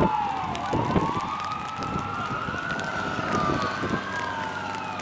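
Emergency vehicle siren wailing: its pitch slides down to a low point about half a second in, climbs over the next two seconds, holds high, then falls again near the end.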